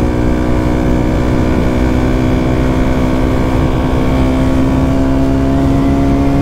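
Yamaha WR155R's single-cylinder four-stroke engine breathing through a Radamel F4 aftermarket stainless exhaust, heard from the rider's seat while riding at a steady part throttle, its pitch creeping slowly upward.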